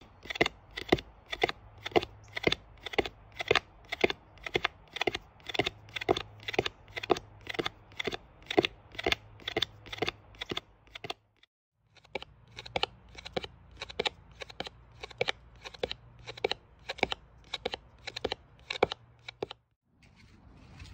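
Regular sharp clicks, about two a second, over a low steady hum, broken off briefly about eleven seconds in before the clicking resumes.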